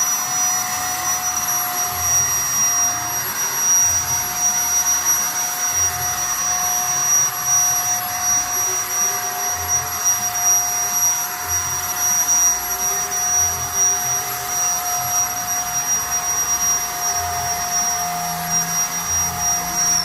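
Electric paint spray gun's motor running steadily with a high whine, then switched off at the end, its pitch falling as it winds down.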